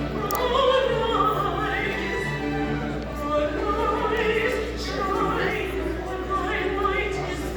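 Classical-style music with operatic singing over instrumental accompaniment, sustained held notes.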